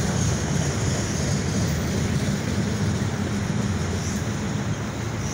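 BNSF train rolling past, a steady noise of wheels on rail and running gear that eases slightly near the end.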